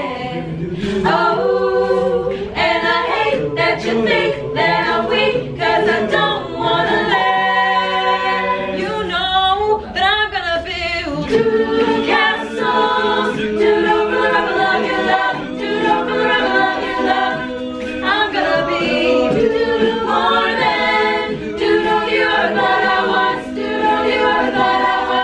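Mixed-voice a cappella group singing a song in harmony, a woman leading at the front over the others' sustained backing chords.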